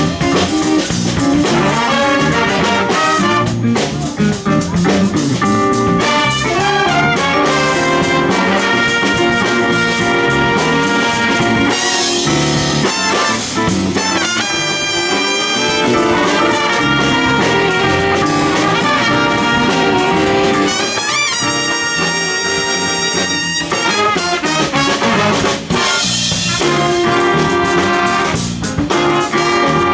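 Jazz big band playing, with the brass section of trumpets and trombones out in front of the ensemble.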